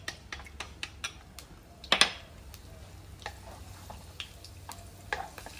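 Wooden spatula stirring minced garlic frying in oil in a non-stick wok, with a quick run of scraping clicks against the pan and one louder stroke about two seconds in, over a faint sizzle.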